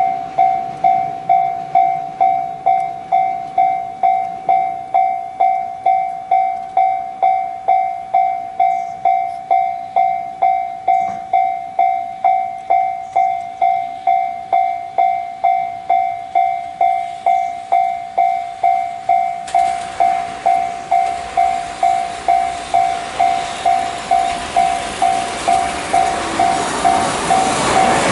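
Japanese level-crossing warning bell ringing on one steady pitch, about two rings a second. Around two-thirds of the way in, the noise of an approaching freight train comes in and grows louder toward the end.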